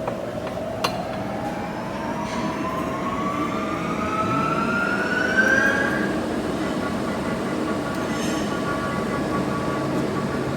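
A 10-metre Poręba lathe running on a test run: its drive spins up with a whine that rises steadily in pitch for about six seconds, then runs on at a steady speed.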